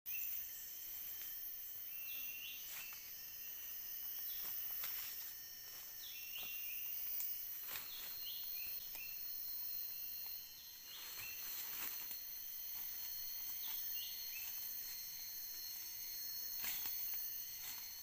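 Forest insect chorus: a steady, high-pitched drone of several layered pitches. Over it a bird repeats short hooked call notes every second or two, with scattered clicks and rustles.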